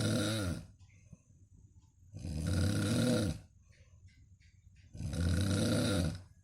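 A sleeping person snoring in a slow, regular rhythm: low-pitched snores about every three seconds, each lasting over a second, one trailing off just after the start and two more in full.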